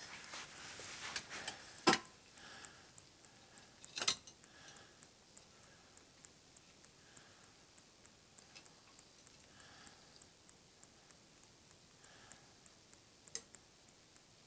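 Molten aluminum being poured from a crucible into a steel ingot mold. Two sharp knocks come in the first four seconds. After that there is only a faint, even ticking a few times a second.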